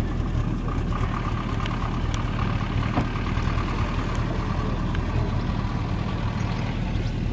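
A vehicle engine running steadily with an even low hum that holds the same level throughout.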